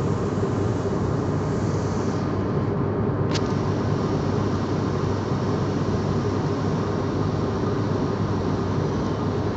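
Steady engine and air-rush noise inside an airliner's cabin, with one short click a little over three seconds in.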